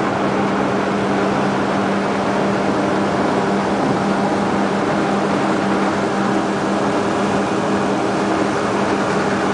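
A passenger motor ship's engine running steadily under way, a constant low hum, mixed with the rush of water churning in the propeller wake behind the stern.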